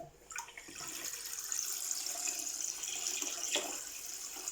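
Water running from a tap into a sink, a steady hiss, with a couple of faint knocks.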